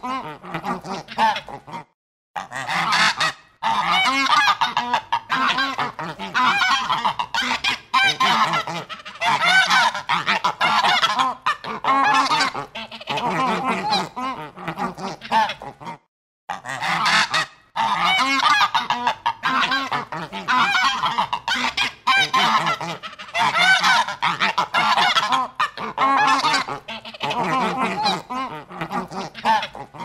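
A flock of geese honking, many calls overlapping without pause, with two brief breaks about two seconds in and about sixteen seconds in.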